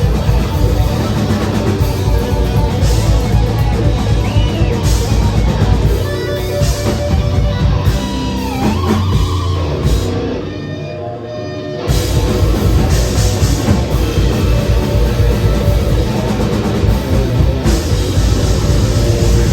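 Death metal band playing live: distorted guitars, bass and drums. About ten seconds in, the heavy low end drops away for roughly two seconds, leaving a thinner guitar part with bending notes, before the full band comes back in.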